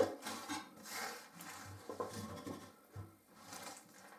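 Handling noises of objects being moved: a sharp knock at the start, then irregular light taps and rubbing.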